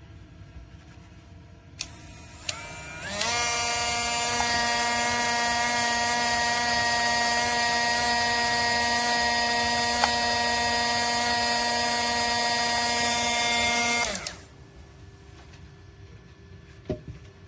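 Cordless rotary tool's small electric motor running free with a steady, high-pitched whine. After two clicks it spins up about three seconds in, runs evenly for about eleven seconds, then winds down.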